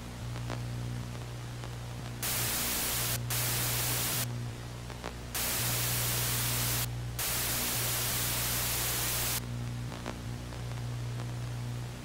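TV static: a steady low electrical hum and buzz, broken by bursts of loud static hiss. The first two are short ones about two and three seconds in, then two longer ones from about five to nine seconds.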